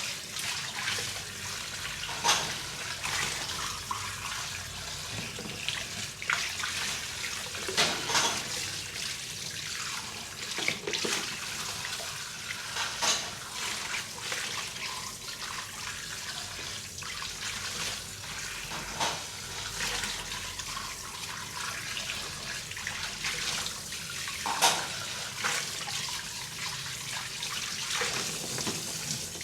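Dishes being washed by hand in a sink: running tap water with frequent clinks and knocks of dishes being handled and set down.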